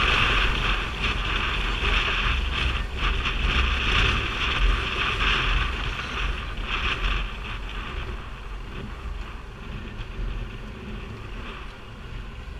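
Wind rushing over the microphone of a moving motorcycle, over the low rumble of the ride. It fades over the second half.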